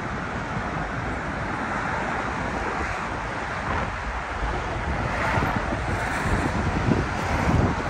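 Wind buffeting the microphone in low gusts over a steady rush of city traffic noise.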